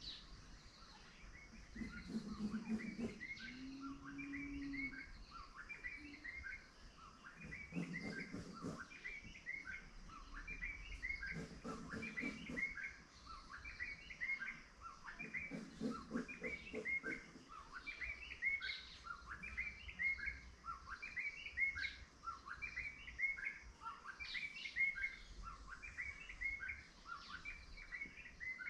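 Many small birds chirping continuously in short, quick, overlapping notes. A few times a lower-pitched sound breaks in for a second or two.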